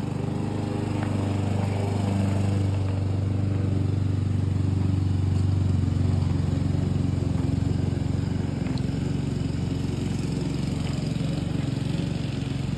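Walk-behind lawn mower engine running steadily while cutting grass.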